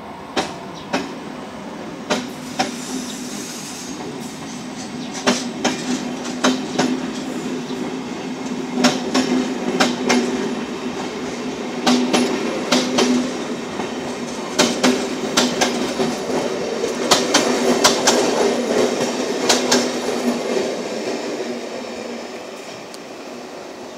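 Passenger train hauled by an NSB El 18 electric locomotive passing close by, its coach wheels clicking over rail joints in quick groups over a steady hum. The sound fades near the end as the last coach moves away.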